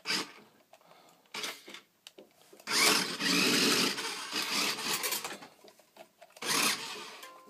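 Small electric gear motors of a large radio-controlled Growler toy robot whirring in several short spurts, then a longer, louder run of a few seconds and one more brief spurt as the remote's levers are worked.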